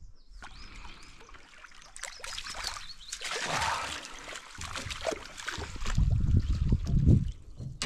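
Water splashing and trickling as a hooked trout is drawn in to the side of the boat. About six seconds in, louder low rumbling and knocks take over for a second or two.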